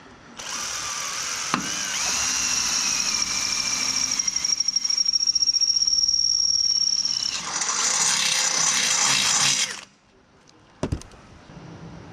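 Power drill running for about nine seconds with a high steady whine, drilling a mounting hole for a light in an aluminium ladder rack, then stopping abruptly. A couple of sharp clicks follow near the end.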